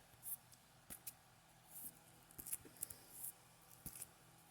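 Pokémon trading cards being handled and shuffled, making a series of brief, faint swishes and light clicks as the cards slide against each other.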